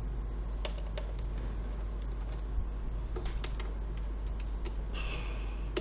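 Scattered light clicks and taps of a screwdriver and fingers on a laptop's plastic bottom case, with a brief scrape about five seconds in, over a steady low hum.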